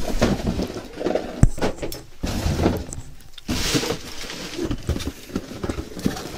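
Cardboard boxes and plastic packaging handled on a table: irregular knocks and clicks with rustling, and a longer rustle a little past halfway.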